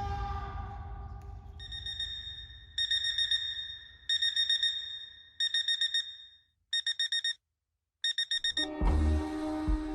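Electronic alarm clock beeping in quick groups of about five or six beeps, a group roughly every second and a half. A music track starts near the end.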